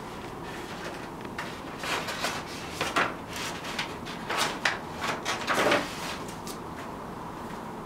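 A large sheet of printed paper rustling and crinkling as it is handled and pressed against a wall, in a string of short crackles that come thickest through the middle few seconds.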